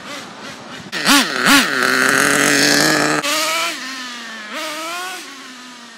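Nitro RC truck's small two-stroke glow engine revving as the truck drives. About a second in there are two quick blips, then a high, steady run for about two seconds that cuts back sharply. It revs once more near the end and then falls away.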